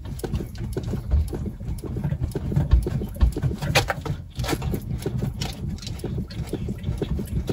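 Front axle of a BMW E46 being worked during a squeak test: irregular low knocks, clicks and rumble, with no squeal heard, the new xenon headlight ride-height sensor having apparently cured the squeak.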